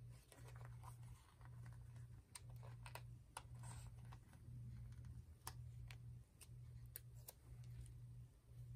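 Near silence: faint scattered clicks and ticks of a sticker sheet being handled and a sticker peeled off, over a low hum that swells and fades about once a second.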